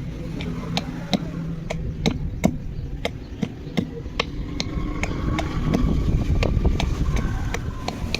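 Hammer blows landing about twice a second, with a low engine rumble growing louder in the second half.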